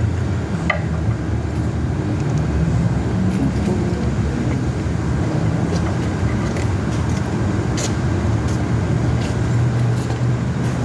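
Steady low mechanical rumble like an engine running, with a few light clicks over it.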